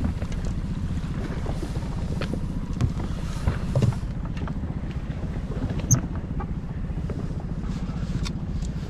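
Yamaha 25 hp outboard motor idling with a steady low rumble, with a few short sharp clicks and knocks from handling the catch on the boat.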